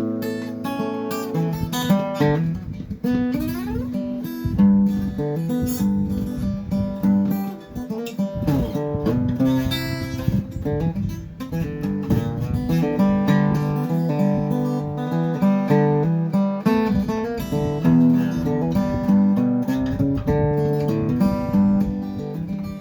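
Acoustic guitar playing an instrumental break between verses of a gospel song, strummed chords with notes sliding up a few seconds in.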